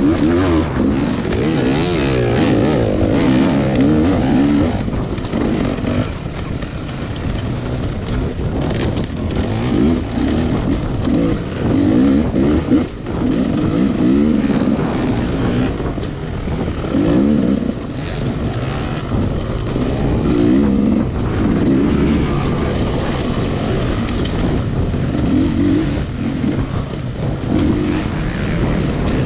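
Rieju MR300 two-stroke enduro motorcycle engine being ridden hard off-road. The pitch climbs and drops over and over as the rider opens and shuts the throttle and changes gear.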